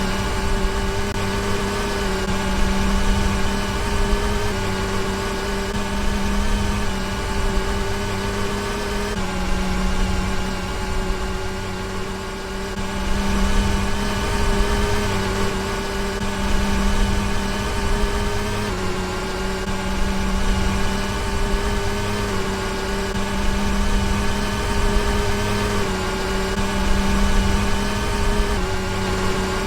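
Hotpoint washing machine's motor running. A steady hum and whine shifts slightly in pitch every few seconds, over a low rumble.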